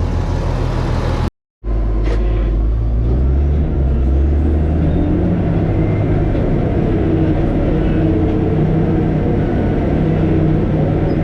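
Heavy earthmoving machine's diesel engine running steadily under work, its pitch shifting and swelling a couple of seconds in. The sound cuts out completely for a moment about a second in.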